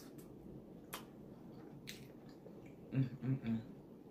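A person eating with wet mouth sounds: chewing and smacking, with sharp clicks about one and two seconds in. About three seconds in come a few short hummed voice sounds, like an appreciative "mm".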